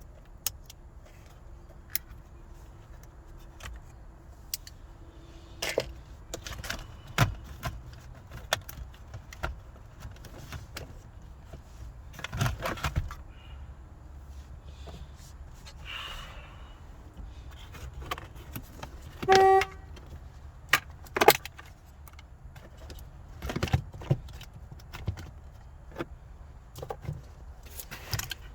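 Scattered clicks, clinks and knocks of metal tools and small parts being handled while the gear shifter is refitted. About 19 seconds in there is one short car-horn toot, the loudest sound.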